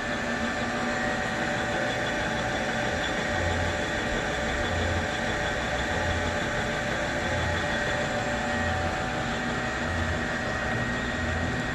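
Supermax LG1440 gap-bed engine lathe running under power, a steady machine drone with several constant gear-whine tones. From about three seconds in, a low throb repeats a little under once a second.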